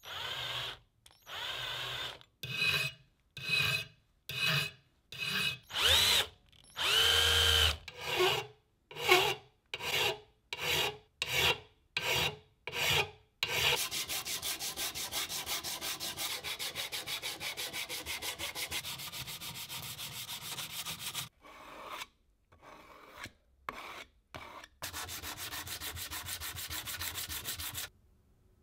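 A countersink bit, turned by hand, scrapes the edge of a hole in a small steel part in short separate strokes, some with a brief squeal as the cutter bites the metal to deburr it. About halfway through, the sound changes to a sanding block rubbed fast and evenly back and forth over a steel bracket. It pauses briefly, resumes, then stops.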